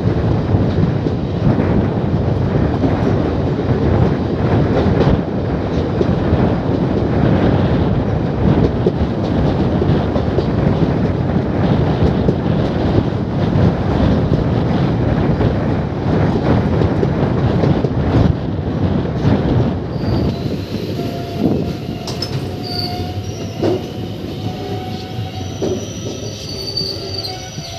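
Indian Railways passenger coach running at speed, heard from its open door: a loud, steady rumble and rattle of wheels on the rails. About twenty seconds in the noise drops and thin, high metallic squeals come in as the train runs into a halt.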